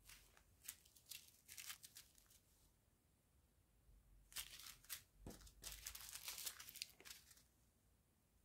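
Small plastic zip-lock bags of round diamond-painting drills crinkling faintly as they are handled, in two spells: one at the start and another from about four seconds in that lasts some three seconds.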